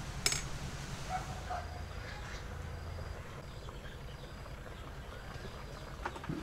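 Outdoor rural background: a steady low hum, a single sharp click shortly after the start, and faint chicken calls.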